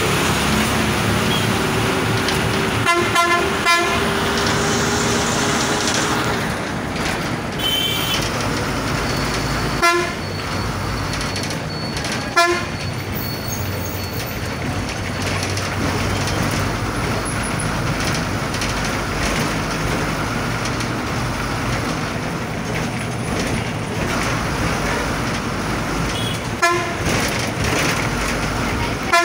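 Steady engine and road noise from inside a moving town bus, broken by several short horn toots: two close together about three seconds in, then single ones later on.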